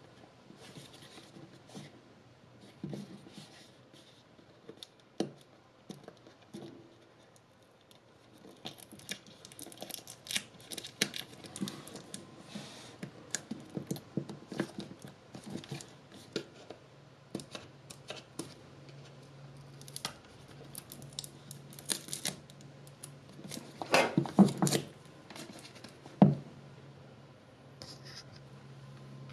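Fingers scratching at and peeling the clear tape seal on a cardboard smartphone box, with scraping, rustling and small clicks as the box is turned in the hands. The scraping comes in bursts and is loudest near the end, then there is one sharp knock.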